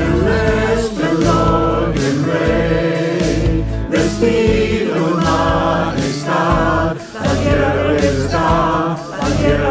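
A choir singing a Christian worship song, with instrumental accompaniment.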